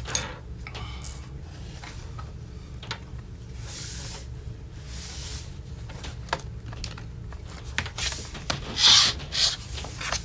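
A replacement battery being handled and fitted into an open MacBook Pro case: rubbing and scraping with scattered light clicks, the loudest scrape near the end.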